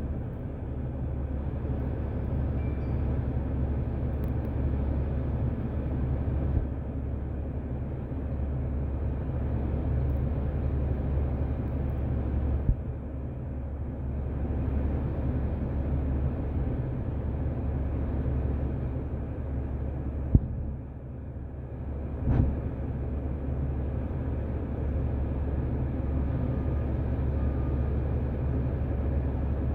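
Steady low drone of a NABI 416.15 40-foot diesel transit bus heard from inside the cabin while under way, with engine, drivetrain and road noise. A sharp click and then a short louder knock come about two-thirds of the way through.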